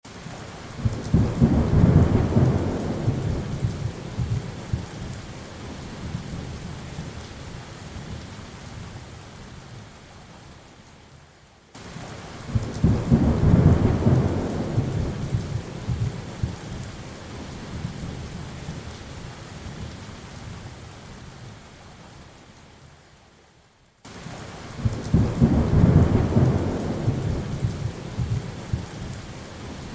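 Steady rain with rolling thunder: three low rumbles, about twelve seconds apart, each swelling within a second or two and slowly dying away under the rain. The sound cuts off abruptly just before the second and third rumbles, as in a repeating loop.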